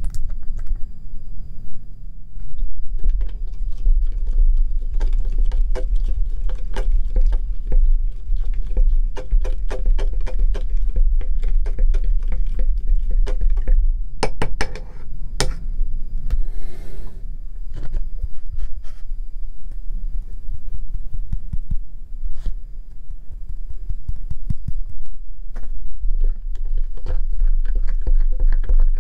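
Plastic spoon stirring thick slime mixture in a small glass bowl, giving runs of quick clicks and taps against the glass, over a steady low hum.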